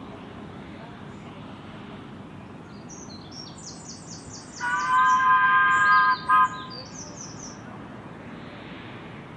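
Miniature steam locomotive's whistle sounding one long blast of about a second and a half, several tones together, then a short toot. A small bird chirps high notes around it.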